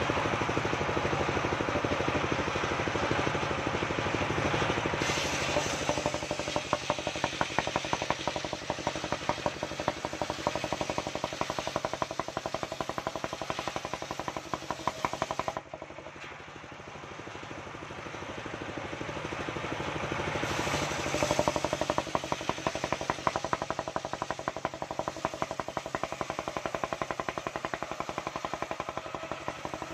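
Engine-driven mobile circular sawmill running with a rapid, steady knocking beat while its blade rips a waru (sea hibiscus) log lengthwise. About halfway through the sound drops suddenly, then builds back up gradually over several seconds.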